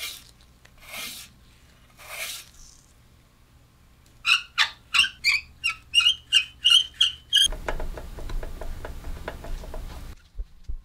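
Rusty old manual playing-card shuffler being worked by hand. After a few short scrapes, its wooden crank knob squeaks about ten times, about three a second, as it is twisted on its spindle. Then the crank is turned and the mechanism gives a fast rattling grind of ticks for a couple of seconds.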